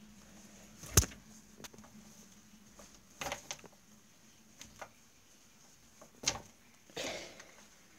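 A little bell worked by pulling its striped rope sally, giving a few short, sharp clacks and knocks rather than a long ring: the loudest about a second in, a quick cluster around three seconds, another sharp one past six seconds and a softer rustling clack near the end.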